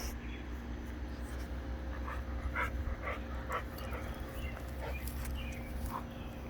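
A dog panting in a series of short breaths, over a steady low hum.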